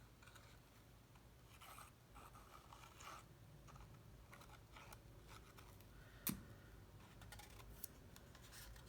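Faint rustling and light tapping of cardstock being handled and pressed together as a glued paper box is closed up, with one sharp click about six seconds in.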